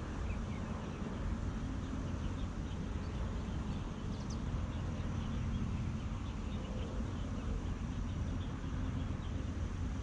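Outdoor riverside ambience: a steady low rumble, with faint, scattered high chirps, one small cluster about four seconds in.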